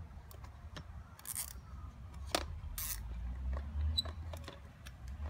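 A plastic cable tie being pulled tight through its ratchet to fasten a masthead amplifier to the antenna pole: two short zipping pulls, one about a second in and one near the three-second mark, with a sharp click between them and small clicks and taps.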